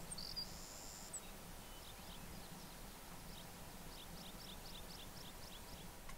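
Faint birdsong: a few high thin chirps and a short held high note in the first second, then a run of quick high chirps, about five a second, through the second half, over a faint steady background hiss.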